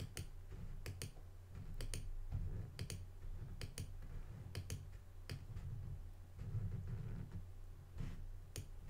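Computer mouse button clicking about once a second, mostly in quick pairs of sharp clicks, over a low steady hum.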